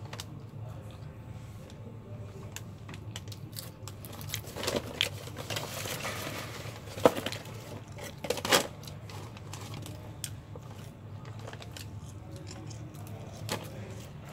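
Handling noise: rustling with several sharp clicks between about four and nine seconds in, and one more click near the end, over a steady low hum.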